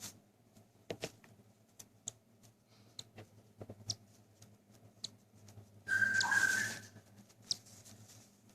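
A hand-fed cockatiel chick gives one whistling, hissy food-begging call lasting about a second, about six seconds in. Faint small clicks and brief high chirps are heard through the rest.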